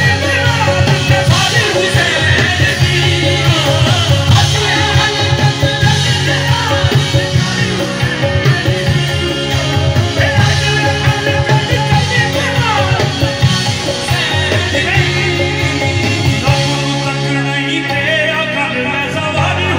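Live qawwali played loud through a PA: singing over instrumental accompaniment, continuous and steady in level.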